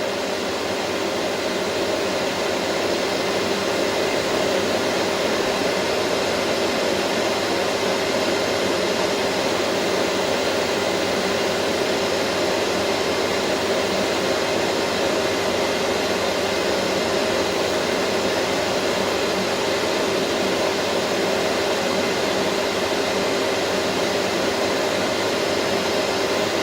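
Vacuum cleaner running steadily: an even, rushing hum with a couple of steady tones in it, swelling slightly over the first two seconds and then holding level.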